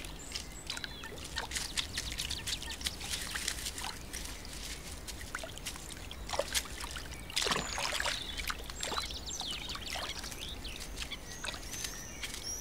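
Small splashes, drips and clicks of water and wet plant stems as great crested grebes work water weed into their floating nest. A few high chirping bird calls come in the background, mostly in the second half.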